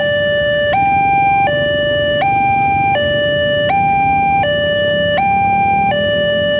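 Railway level crossing's electronic warning alarm sounding, switching between a higher and a lower tone about every three-quarters of a second, over the rumble of passing motorcycles.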